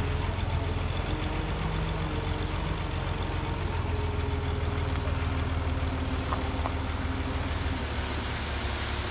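Heavy diesel engine of earthmoving machinery running steadily at an even pitch.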